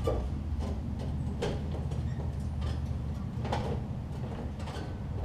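Riding mower's 18 hp Briggs & Stratton opposed-twin engine running at a steady idle, with a handful of short clicks and knocks on top.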